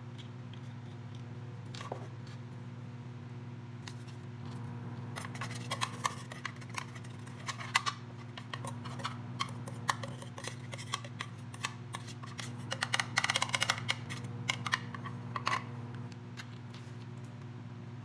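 A utensil scraping and tapping inside a microwave cooking dish, spreading butter and olive oil, in many quick strokes between about 5 and 16 seconds in, busiest near 13–14 seconds. A steady low hum from an electric desk fan runs underneath.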